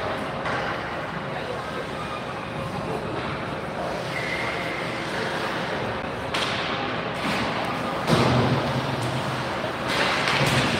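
Ice hockey rink ambience during play: spectators chattering over a faint steady hum, with several thuds, the loudest about eight seconds in.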